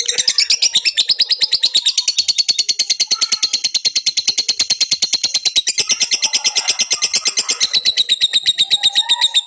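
Lovebird singing a long unbroken 'ngekek' chatter: fast, even, high-pitched notes repeated about nine times a second without a pause.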